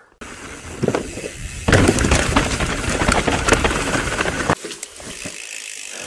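Mountain bike riding fast over a dirt trail: tyre noise on dirt with rattling clicks from the bike, loudest for about three seconds in the middle, then fading to a faint hiss.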